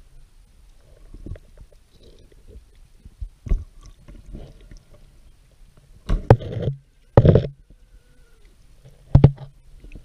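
Underwater handling noise from a camera held by a snorkeler in a stream: a low rumble with a few sharp knocks, and two short rushing bursts about six and seven seconds in.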